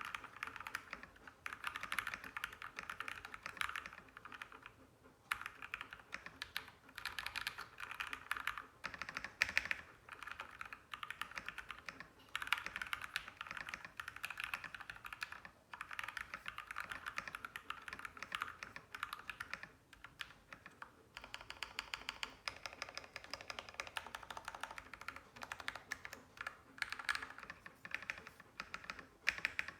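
Typing test on a custom 65% mechanical keyboard with lubed Gateron Black Ink linear switches in an aluminum case on an aluminum plate: fast, steady keystrokes, broken by a few short pauses.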